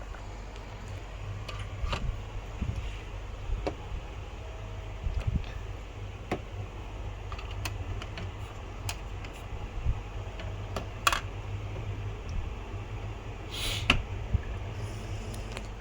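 Scattered light clicks and taps, irregular, over a steady low hum, with a brief rustling burst near the end.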